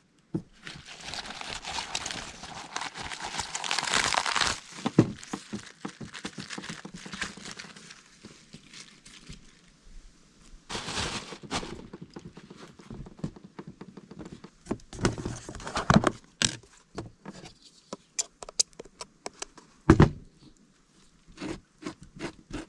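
Plastic packaging crinkling and rustling for about four seconds, with shorter bursts of crinkling later. Scattered clicks, taps and scrapes follow as food is prepared with a knife on a table, with one dull thump near the end.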